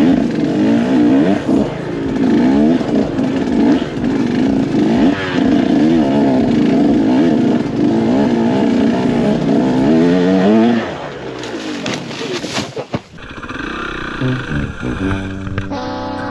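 Off-road motorcycle engine being ridden, its pitch rising and falling over and over with the throttle. After about eleven seconds it drops to a quieter, steadier sound.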